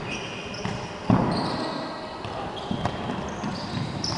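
Indoor futsal game: a ball kicked hard about a second in, with sneakers squeaking on the wooden court and footsteps, echoing in the gym.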